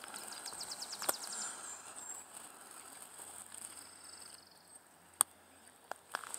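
Faint songbird calls: a rapid high trill in the first second and a half, then a short, high, buzzy note about four seconds in. Two sharp clicks fall in between.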